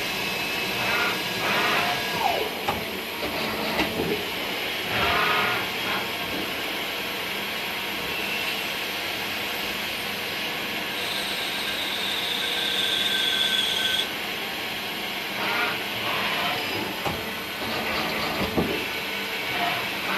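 CNC machine running while machining a brass part: a steady mechanical noise with a high cutting tone that holds for a few seconds midway and stops abruptly.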